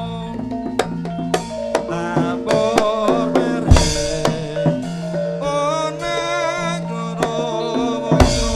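Javanese gamelan-style ensemble music: ringing metallophone notes over hand-drum strokes. A heavy low drum hit comes about four seconds in, and a wavering high melody line runs past the middle.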